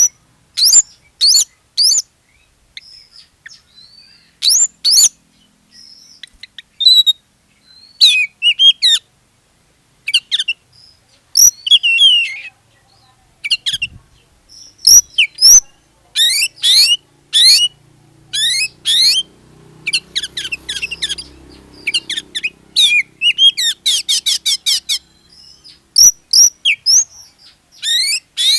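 Oriental magpie-robin in full song: loud, quick phrases of sharp whistled notes, many sweeping down in pitch, with gaps between phrases and a fast rattling run about three quarters of the way through.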